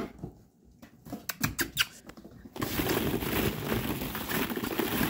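Goldendoodle puppies' paws and claws on a hardwood floor: a few separate sharp clicks, then from about halfway a busy, continuous pattering and scrabbling as they scamper about.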